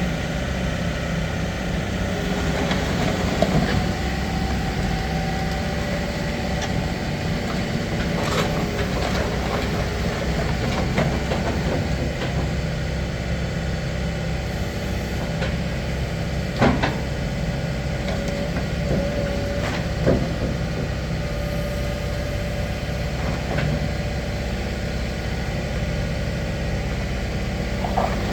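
Doosan DX140LCR-3 tracked excavator's diesel engine running steadily, with a few short knocks now and then.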